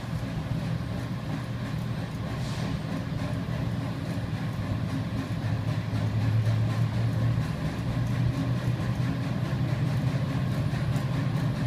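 Steady low hum of running industrial furnace equipment, growing louder about halfway through as the DC power is brought up.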